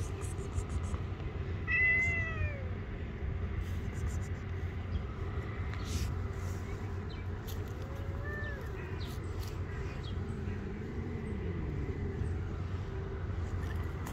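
Cat meowing three times: a loud falling meow about two seconds in, another about eight seconds in, and a fainter, lower one near eleven seconds, over a steady low background noise.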